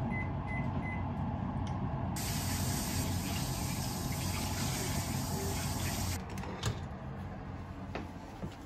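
Four short electronic beeps from a microwave oven around the start, over a steady low hum. A rushing, hissing noise runs for about four seconds in the middle, then stops suddenly.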